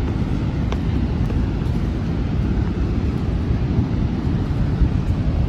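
Steady low rushing noise of water pouring over Horseshoe Falls, with wind on the microphone.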